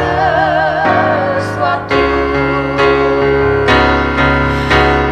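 A woman's voice holds the last note of a Christian worship song with a wide vibrato for about a second, then an electronic keyboard plays on in sustained chords that change every second or so.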